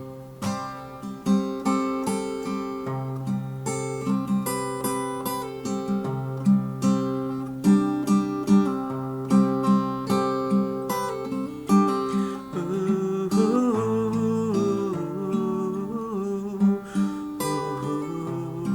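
Acoustic guitar playing an instrumental passage between verses: steadily picked notes over held bass notes.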